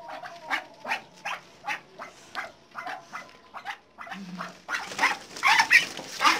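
A flock of Muscovy ducks calling, with short sharp calls about three a second that grow louder and more crowded near the end.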